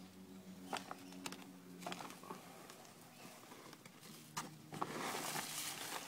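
Loose potting soil spilling and rustling out of a tipped-over grow bag, with scattered small knocks and scrapes, becoming a steadier rush of falling soil about five seconds in.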